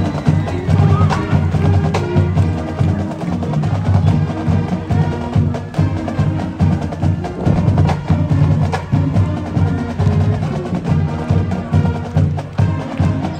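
Loud music with a strong, steady beat and heavy percussion.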